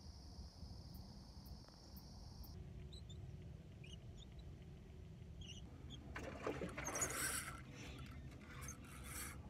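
A steady high insect drone that stops about two and a half seconds in, then scattered short bird chirps. From about six seconds in come irregular rustles and clatters as the angler handles and reels a spinning rod in a canoe, over a low rumble.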